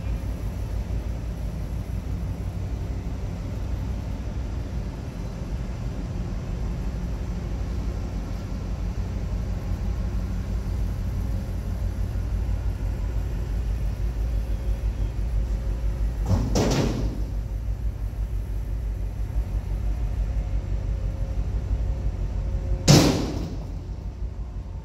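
A large container ship passing close by: a steady low rumble. Two sharp bangs cut through it, one about two-thirds of the way through and a louder one near the end.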